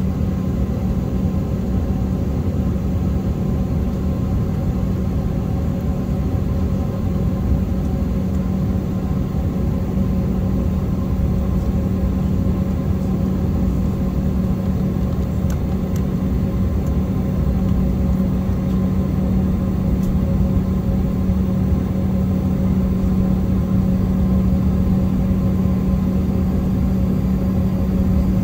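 Steady engine rumble of airport apron machinery with a constant low hum, unchanging throughout.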